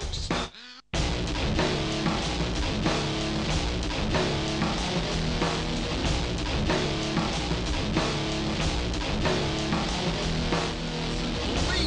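Rock music with guitar and a drum kit keeping a steady beat, cutting in again after a short break about a second in.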